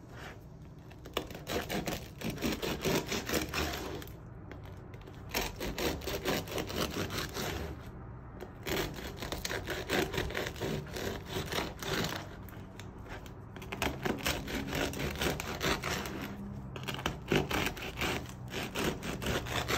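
Bread knife sawing back and forth through the crisp crust of a baked sourdough campagne loaf, in several runs of quick crackly strokes with short pauses between slices.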